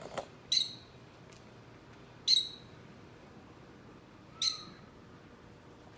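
A bird calling: three short, sharp, high-pitched calls about two seconds apart, with a faint click just before the first.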